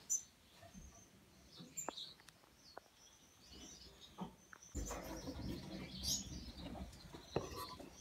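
Gouldian finches giving soft, scattered high chirps, faint. From about five seconds in a low rumble of handling noise sits under the calls.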